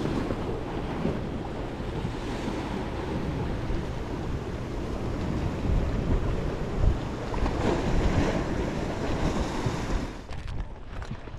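Sea surf washing against the rocks below, with wind buffeting the microphone.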